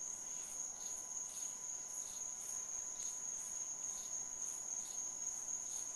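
Crickets and other night insects calling: a steady high trill with a pulsing chirp repeating about two to three times a second over it.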